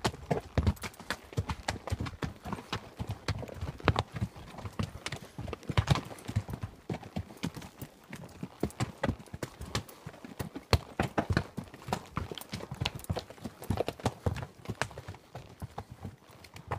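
Horse hooves clopping at a walk on a rocky dirt trail: an uneven, steady run of knocks and scuffs as the hooves strike stones and gravel.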